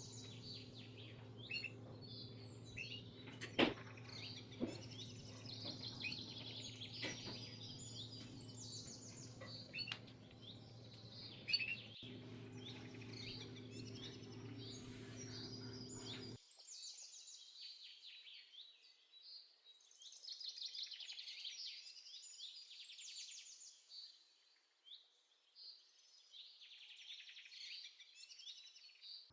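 Many small birds chirping in quick overlapping calls and rapid trills. A low steady hum underneath cuts off abruptly about halfway through, and a few faint knocks sound in the first half.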